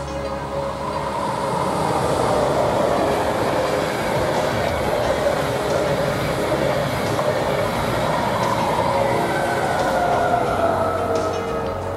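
Intercity train hauled by a DB class 101 electric locomotive, with a second class 101 pushing at the rear, passing at speed. Steady wheel-on-rail rolling noise builds over the first couple of seconds and holds as the coaches go by. Near the end, a whine falls in pitch as the rear locomotive passes.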